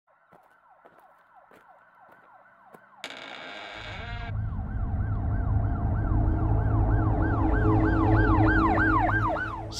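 Emergency-vehicle siren in fast yelp mode, repeated rising-and-falling whoops about three a second, faint at first and growing louder toward the end over a deep low rumble. A short burst of hiss cuts in about three seconds in.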